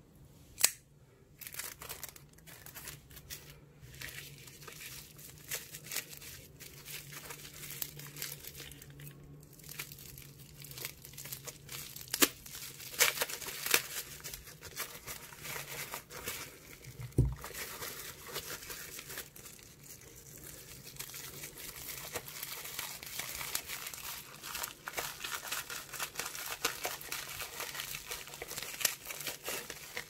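Plastic bubble wrap crinkling and tearing as it is cut and pulled open with a folding knife, a dense run of crackles and small clicks. A sharp click comes about a second in and a dull knock near the middle.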